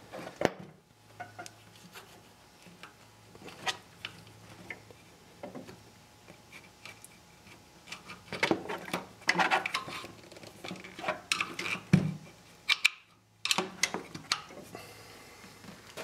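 Scattered clicks, taps and clatter of small metal and plastic tractor parts and hand tools being handled as a control knob and cover fasteners come off. The clicks come thicker around the middle and again near the end.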